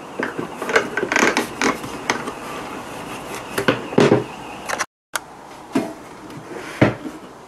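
Handling noises on the metal case of a hot air rework station: scattered clicks, scrapes and knocks from the screwdriver and hands working on the box, with a sharp knock about seven seconds in.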